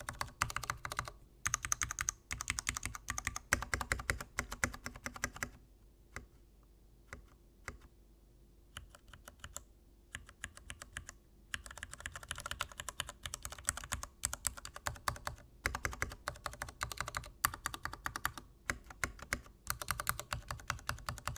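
Typing on a Varmilo VA69 mechanical keyboard with Cherry MX Nature White linear switches, rapid runs of keystrokes with a slower patch of scattered presses in the middle. The switches make a scratchy sound.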